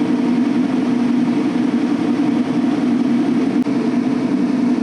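Steady engine and road noise of a loaded semi truck cruising on the highway, heard from inside the cab.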